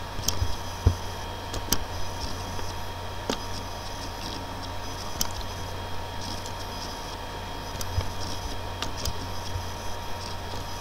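Computer mouse clicking at irregular intervals, short sharp clicks about once a second or less. Under them runs a steady electrical hum and hiss from the microphone.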